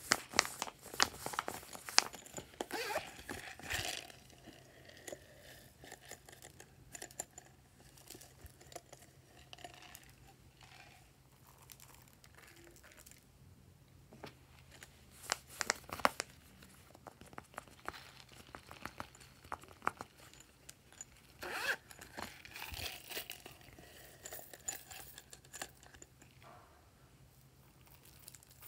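Silicone pop-it fidget toy being pressed, giving a quick run of small sharp pops and clicks in the first few seconds. Then scattered crinkles, rustles and clicks of plastic slime toppings being handled and sprinkled, in a few short bursts with quiet stretches between.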